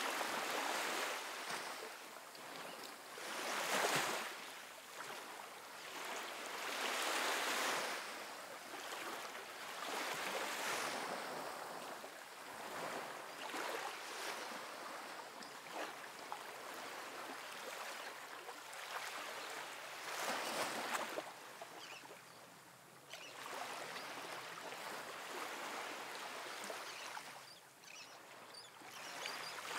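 Small waves washing against a rocky shoreline, the wash swelling and falling back every few seconds.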